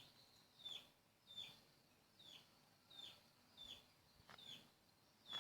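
Faint chirps of a small bird repeating about once or twice a second, each a short falling note, with a couple of faint clicks near the end.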